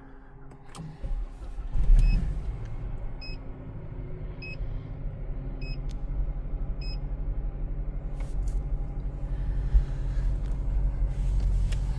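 A 2013 Chevy Malibu engine is started from cold: a brief crank, then it catches about two seconds in and settles into a steady cold idle that slowly grows louder. A dashboard chime beeps four times, about once a second, soon after it starts.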